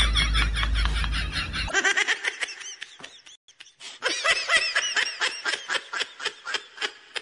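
Rapid, high-pitched laughter in quick repeated bursts. It fades out about two seconds in and starts again about four seconds in.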